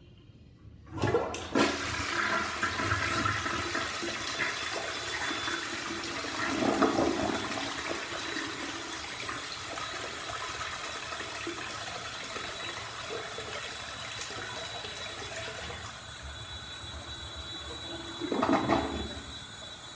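Crane Plumbing Galaxy tank toilet flushing. A sudden rush of water starts about a second in and drains with a long swirl, with louder gurgling surges about six seconds in and again near the end. It is a toilet that double-flushes on its own, without the handle being held down.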